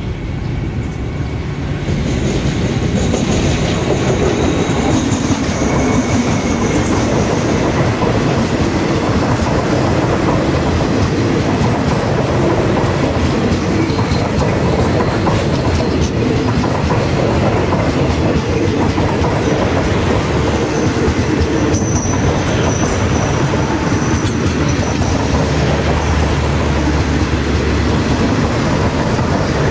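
Diesel-hauled express passenger train rolling past close by as it pulls into the station, its coach wheels clattering over the rail joints. A thin, high wheel squeal rises briefly a few seconds in and again about two-thirds of the way through.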